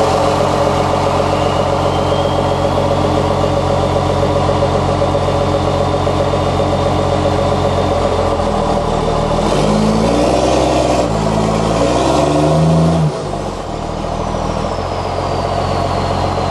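Dodge Ram 3500 dually's Cummins diesel running just after starting, revved up and down several times in the middle as the truck, stuck on wet ground, is tried in reverse, then settling back to a steady run. A thin high whine rides above the engine.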